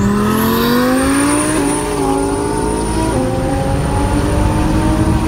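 Nissan GT-R Alpha 10X's twin-turbo V6, heard from inside the cabin, pulling hard at full throttle: the engine note climbs steadily with two brief dips as it shifts up a gear, under a thin steady high whistle.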